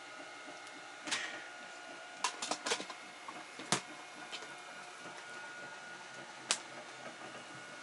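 Homemade motorized TV lift running steadily as it lowers a flat-screen TV into its cabinet, a steady mechanical whine. About half a dozen sharp clicks and knocks come through it, the loudest a little under four seconds in.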